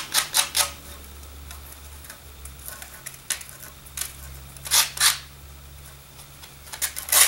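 Hand sanding of a cured concrete countertop's edge: short, light rasping strokes of the abrasive on the concrete, knocking down small bits of concrete sticking out at the corners. A few strokes come just after the start, a pair around the middle and a quicker run near the end, over a faint low steady hum.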